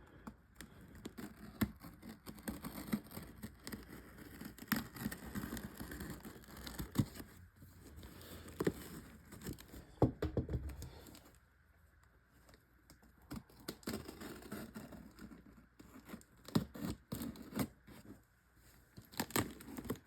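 A shipping box being opened by hand: packing tearing and rustling, with irregular knocks and clicks as the box and its contents are handled.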